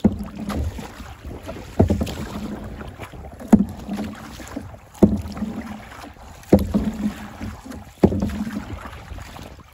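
Canoe being paddled hard through choppy water, a sharp stroke sound about every second and a half, six in all, over the steady rush of water and wind on the microphone.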